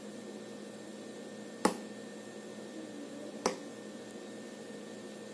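Two sharp clicks about two seconds apart: a fork's metal tines striking the base of a metal loaf pan while poking holes in a layer of bread, over a faint steady hum.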